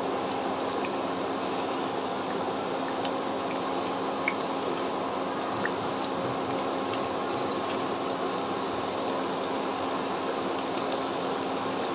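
Hot oil sizzling steadily as pieces of a steamed grated-potato and wheat-flour snack fry in a pan, with a few faint pops.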